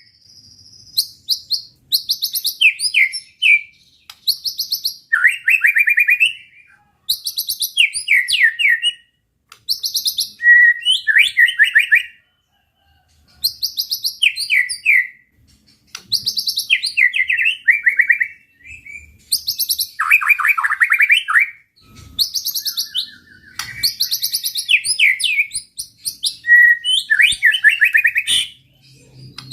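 White-rumped shama (murai batu) singing a loud run of rapid, varied phrases of trills and chatters. The phrases follow one another with short gaps and a longer pause about halfway through.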